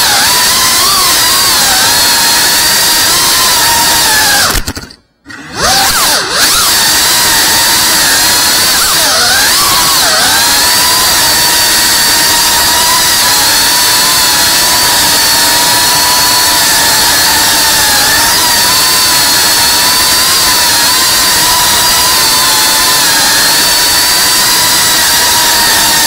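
FPV quadcopter's brushless motors and propellers whining at high throttle, the pitch wavering with throttle changes. The sound cuts out for about half a second about five seconds in, then comes back, and dips briefly in pitch twice around nine to ten seconds in.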